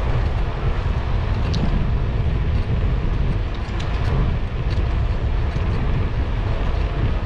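Steady rush of wind across the microphone of a moving e-bike, mostly a deep rumble, with a few faint ticks.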